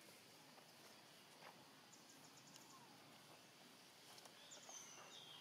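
Near silence: faint outdoor ambience with a few faint, short high chirps.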